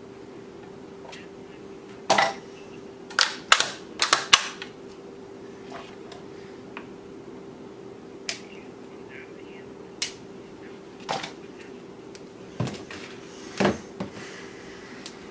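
Tennis racquet stringing machine at work: sharp clicks and clacks of the clamps, tension head and racquet mount as the string is handled, a quick cluster of them a few seconds in, then single clicks every second or two, over a steady low hum.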